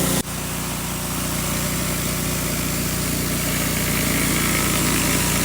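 Pressure washer engine running steadily under the hiss of water spraying from a surface cleaner onto concrete. There is a brief break in the sound about a fifth of a second in.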